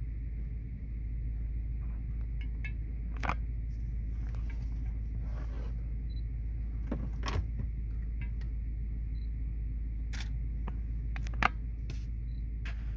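Steady low hum of a car engine running, heard from inside the cabin, with a few sharp clicks scattered through it, the loudest about eleven and a half seconds in.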